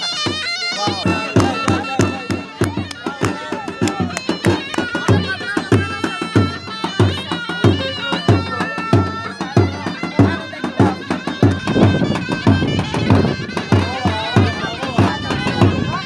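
Turkish folk dance music on zurna and davul: a shrill double-reed pipe plays a wavering melody over a steady beat on the big double-headed bass drum.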